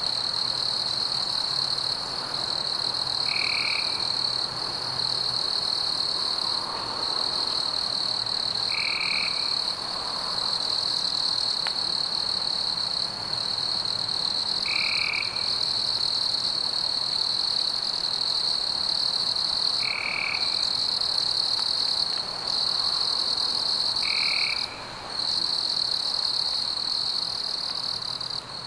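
Night-time insect chorus: a steady, high-pitched trill with brief breaks, and a short chirp that repeats about every five to six seconds.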